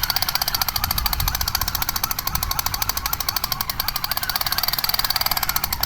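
A rapid, even rattle of many clicks a second, like automatic gunfire, running without a break and stopping just after the end.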